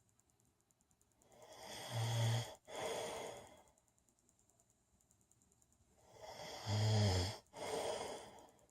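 A man snoring in his sleep: two loud snores about four and a half seconds apart, each a low buzzing snore followed after a brief break by a breathier, noisier part.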